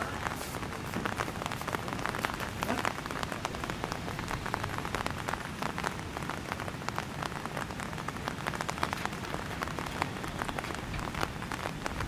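Steady rain falling on hard surfaces: a dense stream of small, irregular drop ticks over an even hiss.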